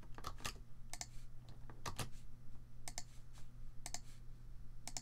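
Computer keyboard and mouse clicks: scattered sharp clicks, several in quick pairs, as a colour value is copied and pasted, over a low steady hum.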